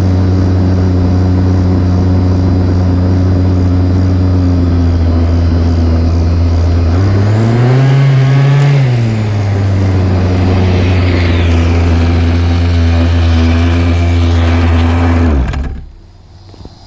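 Small two-stroke weed-trimmer engine in an RC truck running at a steady speed. About seven seconds in it revs up once and drops back, then it cuts off suddenly near the end.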